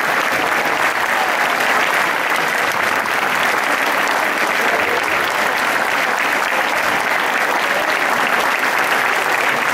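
A large audience applauding steadily, with a few voices faintly heard among the clapping.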